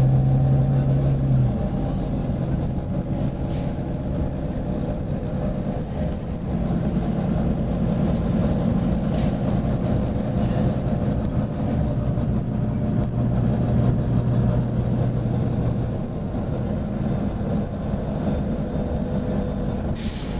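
Volvo B9TL double-decker bus's six-cylinder diesel engine running with a steady hum, its pitch shifting as the revs change, with a few short hisses from the bus's compressed-air system.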